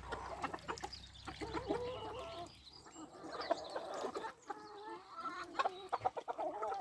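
A flock of domestic chickens clucking, many short calls overlapping, with scattered sharp clicks among them.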